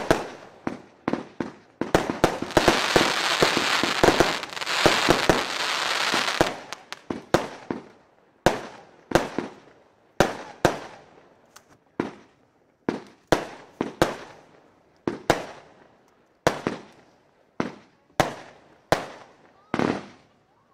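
Firework compound cake firing aerial shells. A quick run of reports leads into a dense stretch of crackling a couple of seconds in that lasts about four seconds, followed by single shot-and-burst reports at about one and a half a second.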